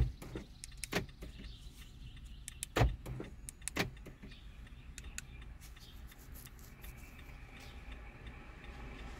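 Scattered light clicks and knocks from handling a diagnostic scan tool and its plug, the loudest near the start and about three and four seconds in, over a faint steady low hum.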